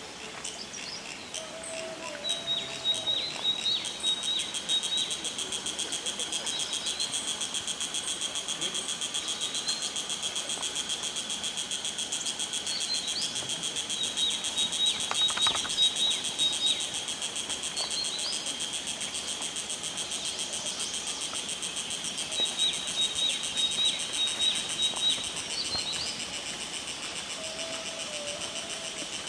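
Forest ambience: a steady, high-pitched insect drone that goes on throughout, with short chirping bird calls repeating over it.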